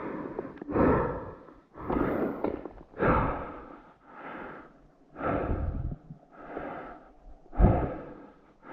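A person breathing hard close to the microphone, panting in and out about once a second.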